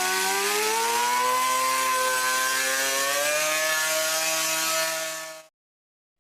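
A steady mechanical whir with several tones slowly rising in pitch over a rushing noise, fading out quickly about five seconds in.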